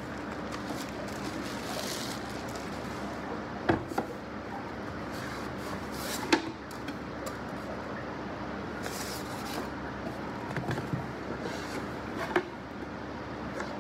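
A wooden game-board box being handled and opened: plastic wrap rustling between a few sharp knocks of wood on wood.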